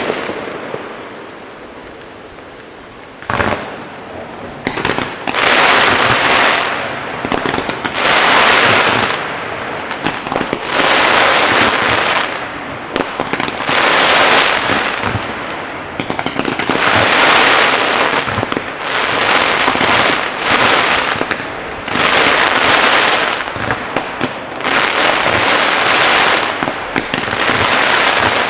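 Aerial fireworks display: a sharp bang about three seconds in, then loud bursts of crackle and hiss that swell and fade every two to three seconds.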